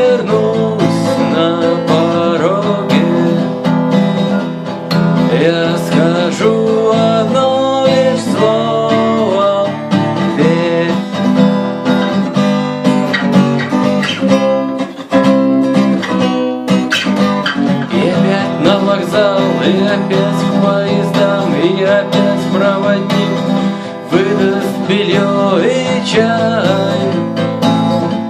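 Guitar music: strummed acoustic guitar under a lead line of bending notes, an instrumental passage of a rock song cover.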